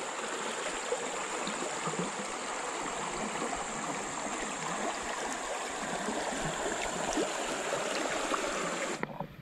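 Fast, muddy river water rushing and gurgling past fallen logs and snags: a steady wash of water noise with small scattered splashes and a thin steady high tone underneath. It cuts off abruptly near the end.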